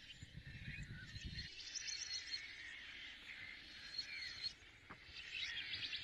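Bird-like chirps and fast trills that waver and bend in pitch, layered over one another, over a low rumble that stops about a second and a half in.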